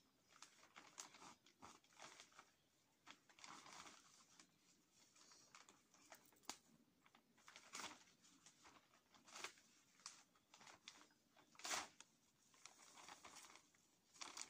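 Faint, irregular rustling and crinkling of plastic sheeting being handled, broken by small crackles and a sharper knock near the end.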